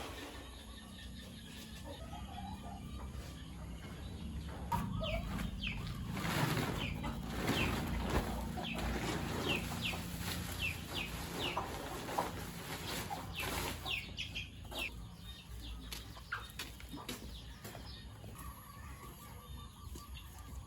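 Chickens clucking and flapping their wings, with many short calls that are busiest and loudest through the middle.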